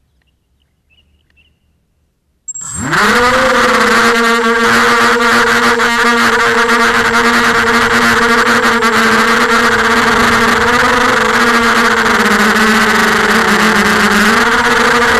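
Emax 250 Pro quadcopter's brushless motors and propellers spinning up about two and a half seconds in, with a fast rising whine, then a steady, loud motor whine and prop buzz in flight, heard close from the onboard camera. The pitch sags briefly near the end and rises again.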